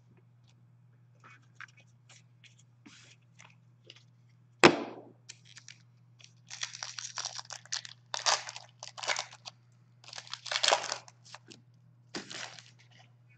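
Foil trading-card packs being torn open and crinkled, in several noisy stretches in the second half, after light ticks of cards being handled. One sharp knock comes about four and a half seconds in.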